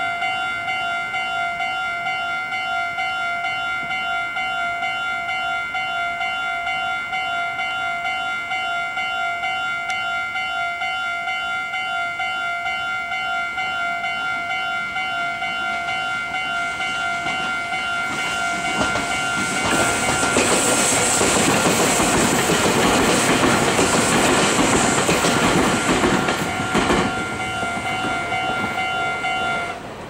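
Level-crossing warning bells ringing in a steady repeating clang as a Meitetsu 9500-series electric train passes through the crossing. The train's rumble and wheel clatter over the rails swell for about eight seconds in the second half and are the loudest sound. The bells stop just before the end.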